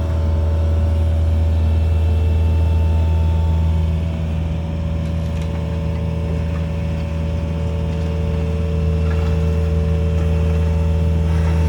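Mini excavator's diesel engine running steadily under light digging, with a few faint clinks near the end.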